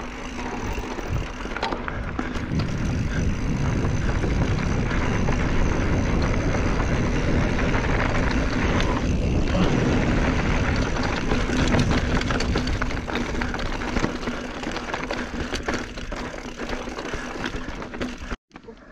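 Wind rushing over a chest-mounted action camera's microphone and a mountain bike's knobby tyres rolling over loose dirt and rocks on a descent, with many small clicks and rattles from the bike over the bumps. The sound cuts out for a moment near the end.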